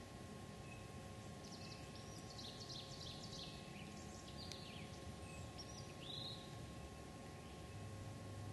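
A songbird singing a rapid jumble of high notes for about three seconds, followed by a few short notes, over a faint steady background hiss.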